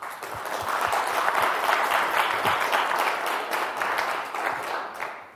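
Audience applauding, building quickly and dying away near the end.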